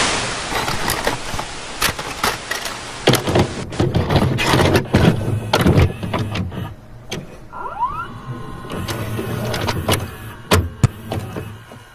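Small motor whirring, with repeated clicks and knocks and a short rising whine about two-thirds of the way through.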